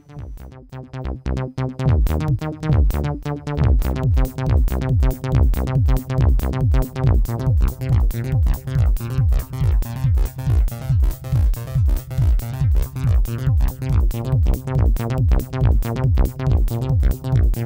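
Background electronic music with a synthesizer and a steady drum-machine beat that fills out about two seconds in.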